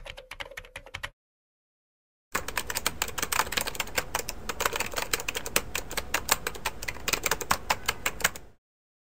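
Rapid typing on keys, several clicks a second: a short burst, about a second of dead silence, then a longer steady run of typing that stops near the end.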